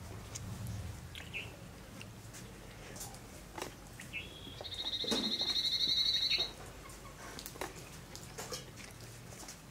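Birdsong: a few short high chirps, then a rapid high trill lasting about two seconds around the middle, over soft clicks and smacks of eating rice by hand from a banana leaf.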